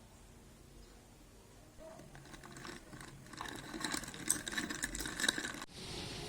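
Ice cubes clinking and rattling in a glass, an irregular run of clinks that starts about two seconds in and grows louder. It gives way to a steady hiss near the end.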